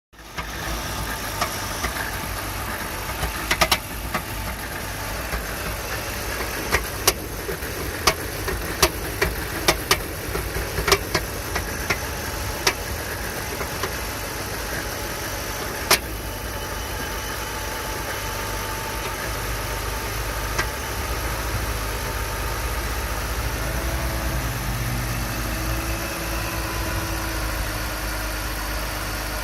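An engine running steadily, with a scattering of sharp clicks or knocks through the first half.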